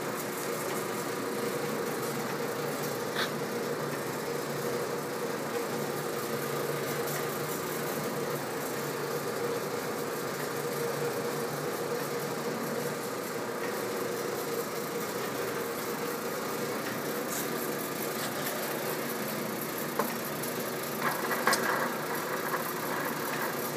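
VDF engine lathe running under power while cutting a thread, its spindle drive and lead screw giving a steady mechanical hum. A few faint clicks, and a short metallic clatter near the end.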